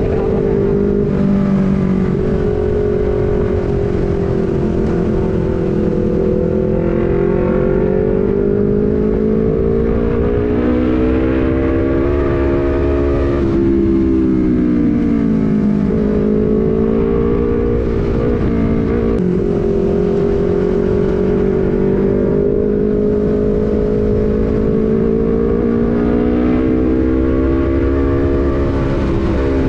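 Sport motorcycle fitted with a prototype aftermarket racing exhaust, cruising in one gear with its engine note rising and falling gently with the throttle, easing off and pulling back up about halfway through. Wind rumble on the microphone runs underneath.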